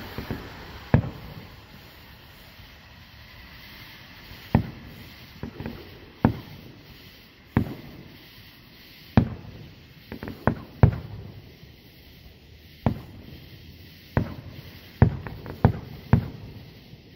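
Aerial fireworks bursting: a dozen or more sharp bangs at uneven intervals, some coming in quick clusters of two or three.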